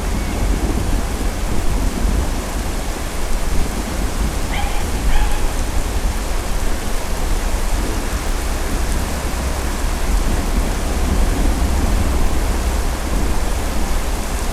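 Thunderstorm: steady rain with a continuous low rumble of thunder. Two short pitched animal calls sound about four and a half seconds in.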